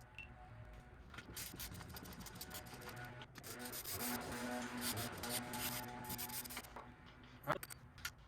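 Rubbing and scraping of tools and metal parts being handled during disassembly of a Onewheel GT, louder in the middle, with a sharp click near the end.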